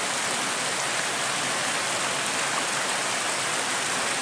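Steady, even hiss of water, like heavy rain.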